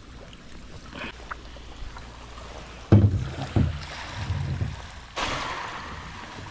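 Hollow knocks and bumps on a plastic boat hull as a pole is laid against it, the loudest about three seconds in. A little later a sudden hissing rush starts and slowly fades.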